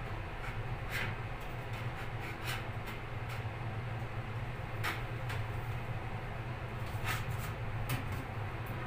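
Scattered light knocks and clatters from a tension-pole corner shelf, its metal pole and plastic trays bumping as it is carried in and set in place, over a steady low hum.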